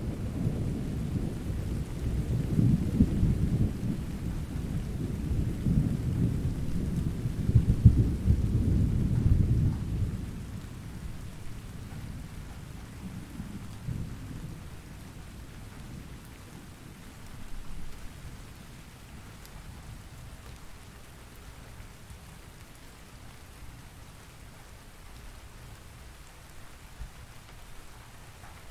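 Thunderstorm: heavy thunder rolling over steady rain for about the first ten seconds, then dying away to rain alone, with one short, quieter rumble past the middle.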